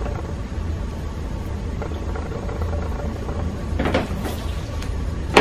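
A metal straightedge and a pattern piece being handled on a tabletop: a rustle and a few light knocks about four seconds in as the rule is lifted and the pattern slid, then a sharp knock at the end. A steady low hum runs underneath.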